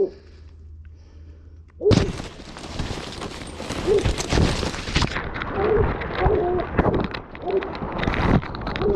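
Corn stalks and leaves rustling loudly as someone pushes fast through a standing cornfield, starting about two seconds in, with a hound's short barks repeating over it.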